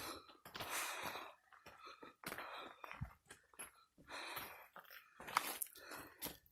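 A person breathing hard while hiking uphill: a run of heavy, breathy breaths about a second or more apart.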